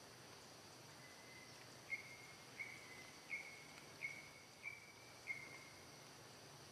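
About six short, high whistled calls from a small animal, evenly spaced about two-thirds of a second apart, each starting sharply and falling slightly in pitch. They sit over a faint steady hum of insects.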